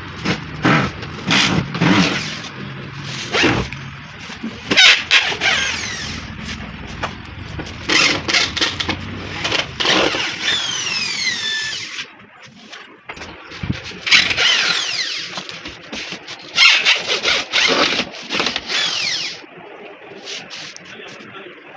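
Hand work on an old sofa's frame and upholstery: a series of sharp knocks and scraping, with several falling high-pitched squeaks.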